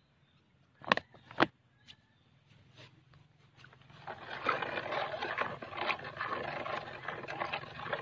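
A wooden stick stirring a bucket of dissolved NPK fertilizer, an irregular scraping and swishing that starts about halfway through. Two short sharp knocks come about a second in.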